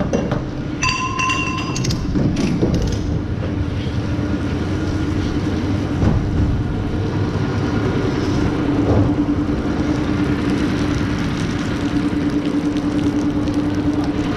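Tractor engine idling steadily under heavy rain, with a few metallic clanks that ring out about a second in.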